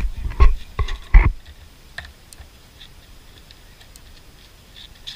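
Skateboard on concrete pavers: three sharp knocks in the first second or so as the board rolls over the paver seams, then quieter, with only a few faint ticks.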